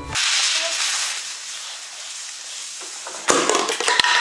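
A surprise-filled firecracker's fuse hissing for about three seconds, then a sharp bang a little after three seconds in as it goes off, followed by a clatter of small things landing.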